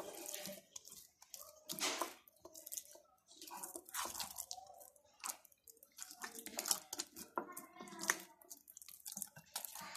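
An oiled hand rubbing and patting a ball of pizza dough in a glass bowl, coating its top with oil before it is left to rise. The strokes are faint and come irregularly, with short pauses between.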